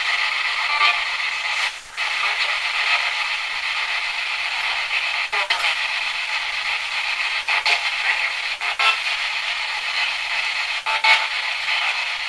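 Ghost box (spirit box), a radio that scans rapidly through stations, giving a steady hiss of static. The hiss is broken by a handful of short clicks and a brief dropout about two seconds in.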